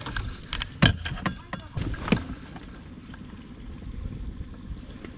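A quick run of sharp knocks and taps in the first two seconds or so, then only steady low background noise.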